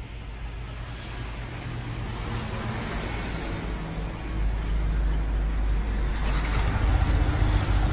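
Yamaha R15 V3's 155 cc single-cylinder engine starting on the electric starter about six and a half seconds in, then running at a cold idle on the very quiet stock exhaust, largely masked by road traffic noise. The sound grows louder towards the end.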